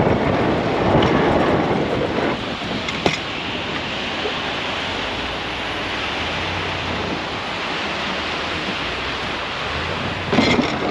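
Pickup truck plowing heavy wet slush with its front blade: a steady rush of slush and tire noise over a low engine hum. There is a sharp knock about three seconds in and a louder surge near the end.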